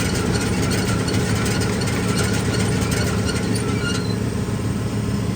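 Tractor engine running steadily, with a fast mechanical rattle over it; the higher rattle drops away about four seconds in.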